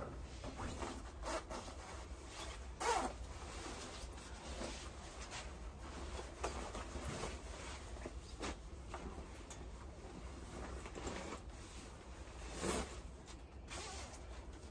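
A nylon puffer jacket being unzipped and pulled off, its shell rustling, along with clothes and a bag being handled at a metal locker; a few louder rustles stand out among the rest.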